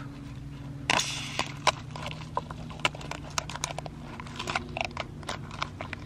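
Knife blade working along a mojarra's backbone on a plastic cutting board: a run of small crackling clicks as it cuts through the rib bones, with a louder rasp about a second in. A steady low hum underneath.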